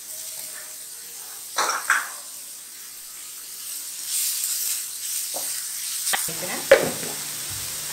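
Wooden spatula stirring grated cabbage into sautéing vegetables in a non-stick frying pan: a light sizzle, a scraping rustle about four seconds in, and a couple of sharp taps of the spatula on the pan near the end.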